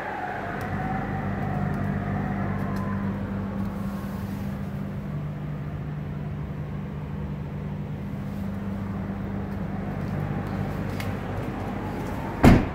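Ram 1500's 5.7-litre HEMI V8 idling with a steady low hum, heard from in and around the cab. A truck door shuts with a single loud thud near the end.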